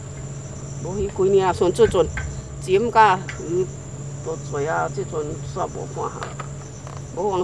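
A person speaking Hokkien in short phrases over a steady, high-pitched insect chirr, typical of crickets, and a constant low hum.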